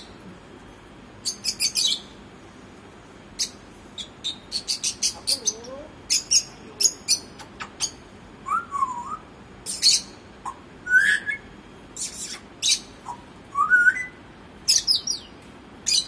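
African grey parrot making a run of sharp, high-pitched clicks and chirps in quick clusters, with a few short whistles that slide up in pitch in between.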